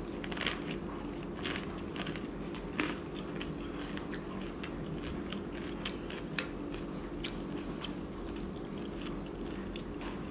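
Close chewing of a crisp tostada topped with ceviche: irregular crunches, thick in the first few seconds and then more spaced out.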